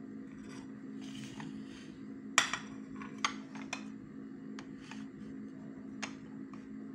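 Plates and a mug being shifted and set down on a glass-topped table: several light clinks and knocks of dishes, the loudest about two and a half seconds in, over a steady low hum.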